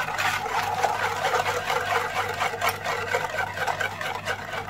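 Wire whisk beating eggs and sugar in a bowl, its wires clattering and scraping against the bowl's sides in rapid, steady strokes.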